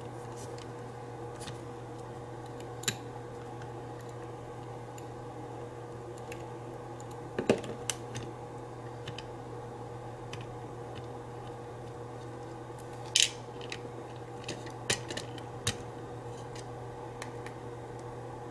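Scattered light clicks and taps of small metal tools and lock parts being handled during disassembly of a lock, about half a dozen spread out, over a steady low electrical hum.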